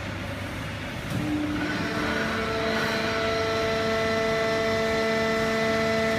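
Fully automatic horizontal hydraulic baling press running: a steady machine hum, joined about two seconds in by a steady whine of several pitches, and getting louder about a second in.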